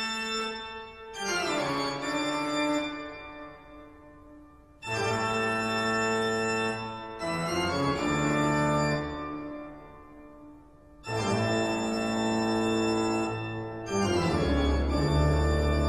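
Background organ music: slow, long-held chords, each sounding for a few seconds and fading away before the next one comes in.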